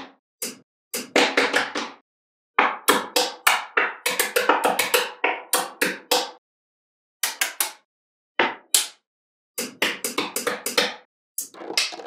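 Magnetic balls clicking and clacking as slabs of them are snapped together and pressed into place. The sound comes in bursts of quick, sharp clicks separated by brief silences.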